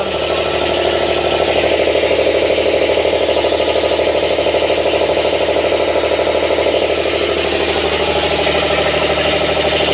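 Yacht generator's engine running steadily at an even speed, with a fast, even pulse and a light rattle.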